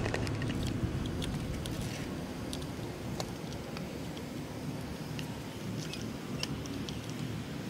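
Light, scattered clicks and taps of a gloved hand handling parts and fittings in a forklift's engine compartment.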